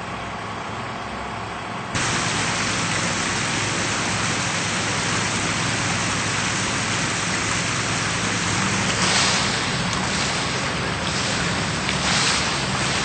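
Steady rushing water with an engine hum underneath; the rushing jumps louder about two seconds in.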